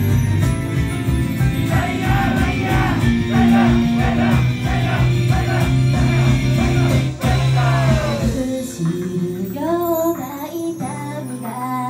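Japanese idol group singing live, female voices over a loud pop-rock backing with heavy drums and bass. About eight and a half seconds in, the drums and bass drop out and a lighter passage with guitar and voice follows.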